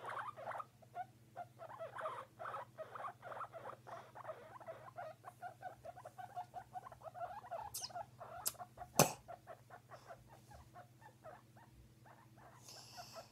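Long-haired guinea pig calling in a quick run of short repeated sounds, several a second, while being handled, with one sharp click about nine seconds in.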